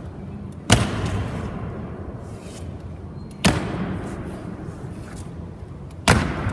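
Three heavy boot stamps of honour guards slow-marching in goose-step on a stone floor, evenly spaced about two and a half seconds apart, each ringing on in a long echo through the hall.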